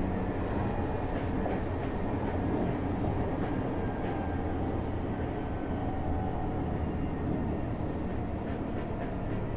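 JR Hokkaido 733 series electric train running steadily between stations, heard from inside its motor car: a continuous rumble of wheels on rail and running gear.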